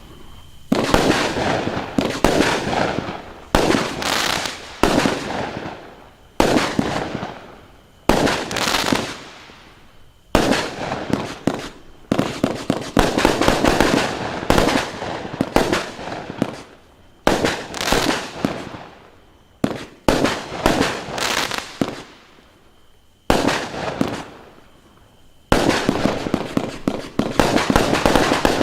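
A 49-shot consumer firework cake (0.8-inch calibre battery) firing in quick succession. Sharp bangs come about one to three a second, each followed by a fading tail, in clusters separated by brief lulls.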